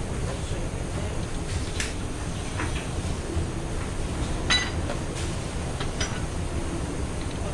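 Fish-cutting tools handled while filleting an eel: a few light clicks of a knife and metal tweezers on a plastic cutting board, with one louder, briefly ringing metal clink about four and a half seconds in. A steady low rumble runs underneath.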